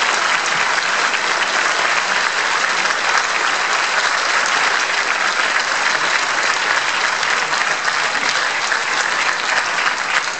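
Audience applauding, steady clapping from many hands.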